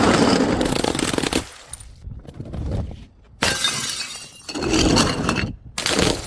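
Glass bottles breaking and shattering, in several short takes that start and stop abruptly one after another.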